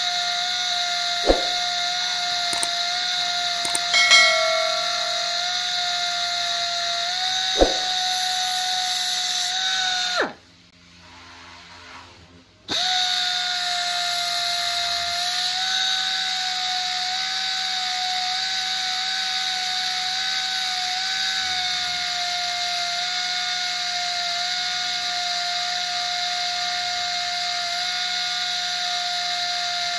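Pneumatic belt sander running with a steady high whine. It stops for about two seconds near the middle, then runs on. Two sharp clicks come in the first eight seconds.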